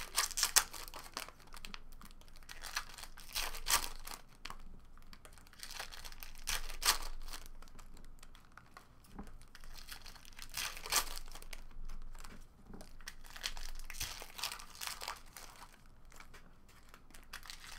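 Foil trading-card pack wrappers crinkling and tearing as packs of Topps Chrome cards are opened, in irregular bursts of rustling, with the cards handled and stacked.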